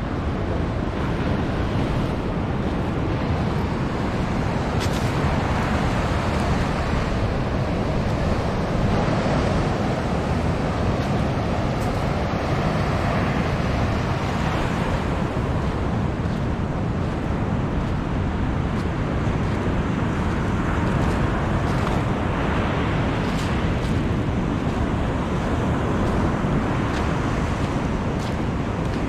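Waves breaking and washing up a beach, mixed with wind buffeting the microphone as a steady low rumble.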